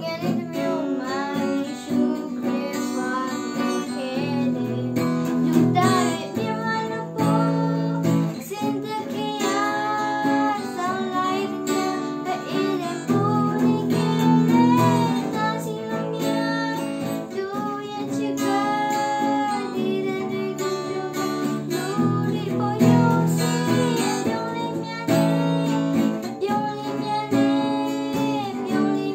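A girl singing a Burmese song solo, accompanied by strummed acoustic guitar.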